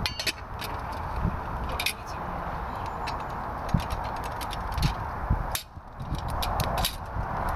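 Wood fire burning in a small camp fire stove, crackling with many sharp pops over a steady rushing of wind, which drops away briefly about five and a half seconds in.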